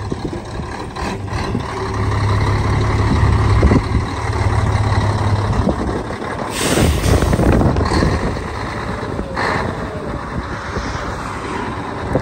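Heavy diesel truck running with a deep rumble, then a loud hiss of compressed air from the air brakes about halfway through and a shorter hiss near the end.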